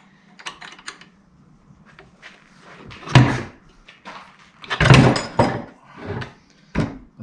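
Metal clunks and knocks from a truck transfer case being taken apart, as a shaft and gear assembly is worked out of the case. A few light clicks come first, then a loud knock about three seconds in and a louder run of clunks around five seconds.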